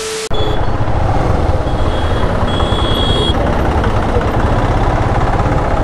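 A brief burst of TV-static glitch effect, then steady motorcycle engine and street traffic noise with a strong low rumble. A thin, high steady tone sounds for about a second and a half near the middle.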